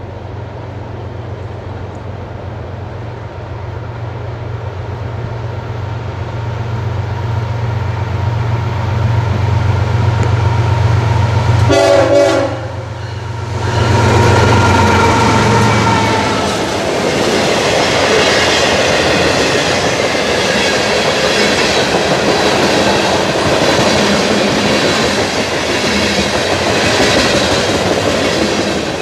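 CSX freight train passing close by: the lead diesel locomotive's engine hum grows steadily louder as it approaches, its horn sounds as it goes by around the middle, then a steady clatter of freight-car wheels over the rails follows.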